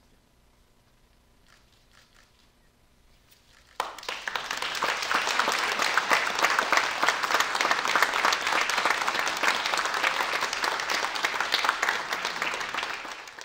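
Quiet at first, then a crowd breaks into applause about four seconds in, clapping steadily until it cuts off near the end.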